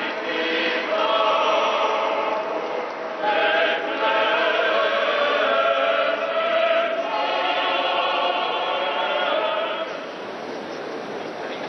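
Choir singing a sacred chant in long held notes. About ten seconds in the singing stops, leaving a quieter, even noise.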